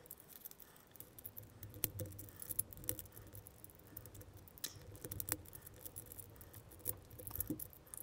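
Metal pieces of a Huzzle Cast Padlock puzzle clicking and scraping lightly against each other as they are turned in the hands, played at four times speed. Faint, irregular quick clicks.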